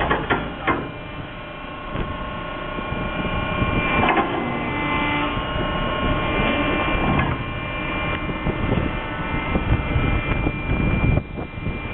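A motor or machine running steadily with a whine, and a few knocks.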